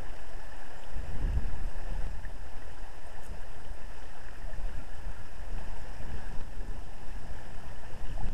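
Steady rush of flowing river water, with wind rumbling unevenly on the microphone from about a second in.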